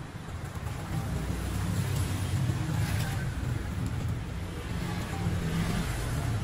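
Road traffic passing, motorbikes and cars: a steady low rumble that grows louder about a second in.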